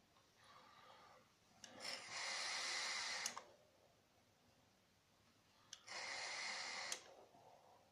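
Heavy vaping breaths through a SMOK TFV4 sub-ohm tank run at about 160 watts with its airflow fully open: two long breathy rushes of air, about two and six seconds in, as a deep drag is taken and a thick cloud of vapour is blown out. Each breath cuts off sharply.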